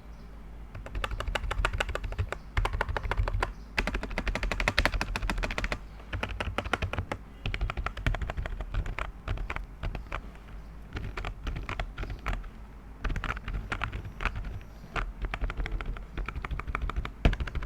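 Typing on a modded cheap membrane keyboard: rapid key clicks in bursts of a second or few, with short pauses between, and one louder keystroke near the end.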